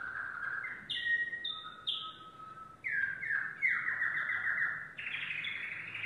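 Domestic canary singing: a steady rolling trill, then a few short high notes, a quick run of falling notes and fast trills, changing phrase every second or so.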